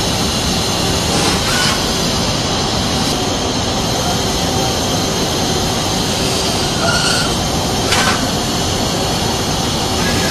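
Mazak Quick Turn Nexus 200-II MSY CNC turning centre machining a bar: a steady, loud machine noise, with a brief sharp click about a second and a half in and another near eight seconds.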